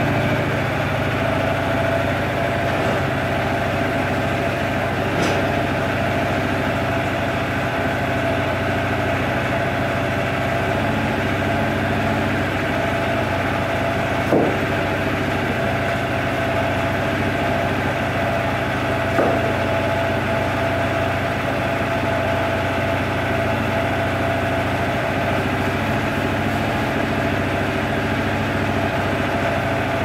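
Portable bandsaw mill's small gas engine idling steadily, not under load, with two brief knocks near the middle.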